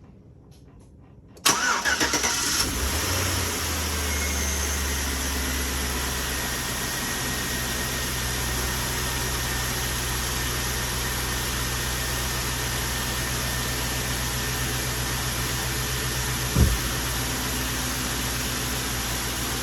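A Chevrolet Tahoe's LS V8 cranks briefly and catches about a second and a half in, then settles into a steady idle, with one short knock near the end. It is the engine's first start on freshly rebuilt fuel injectors.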